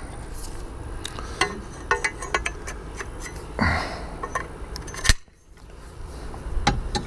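Metal bike-rack parts clinking and knocking as the bowed arms of a hitch-mounted bike rack are handled and slid onto its crossbar, a few scattered knocks with the sharpest about five seconds in.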